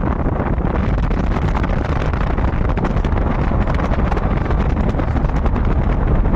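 Loud, steady low rumbling rush of wind buffeting the microphone, with faint crackles through it.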